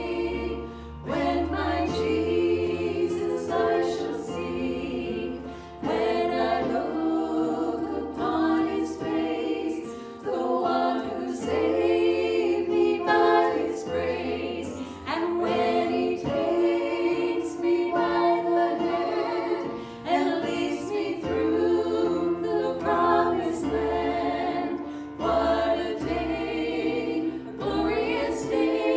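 Group of voices singing a worship song in harmony, in sung phrases a few seconds long with held notes.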